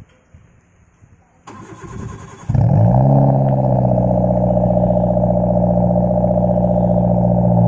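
A Maruti Suzuki Wagon R fitted with an aftermarket HKS muffler is started: the starter cranks for about a second, and the engine catches about two and a half seconds in. The pitch rises briefly, then the engine settles into a loud, steady idle through the muffler.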